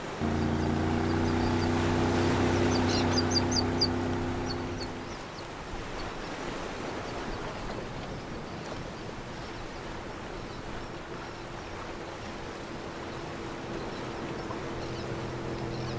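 Added sound-effect track. A low steady motor drone starts abruptly and fades out about five seconds in, with a quick run of short high bird calls around three seconds in. After that comes a steady wash of water and wind noise, and a motor drone comes back near the end.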